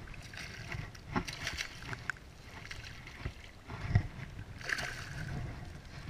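Water splashing in irregular bursts as a hooked flounder thrashes at the surface close to the angler, the loudest splash about four seconds in, over a steady rumble of wind on the microphone.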